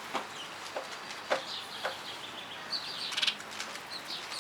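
Small birds, sparrows, chirping close by: scattered short, sharp chirps and a quick rattling chatter about three seconds in.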